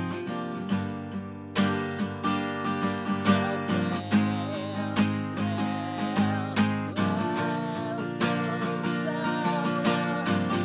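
Music: guitar chords strummed in a steady rhythm, with a sustained melody line wavering with vibrato above them.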